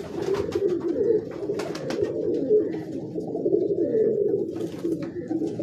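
Domestic pigeons cooing, a continuous chorus of overlapping low coos, with a few light clicks and rustles.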